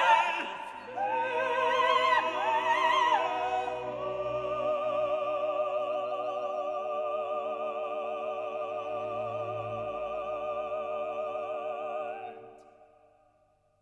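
Operatic singing with orchestra: a voice with wide vibrato sings a phrase, then holds a long final note over sustained orchestral chords that fade out near the end.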